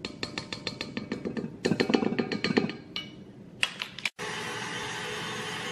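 Rapid, even clicking, about eight clicks a second and loudest about two seconds in. After a sudden break at about four seconds, an electric mixer runs steadily, whipping egg whites with sugar and cornstarch into meringue.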